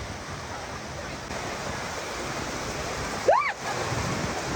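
Heavy rain coming down steadily. A little over three seconds in, a short high whoop rises and falls.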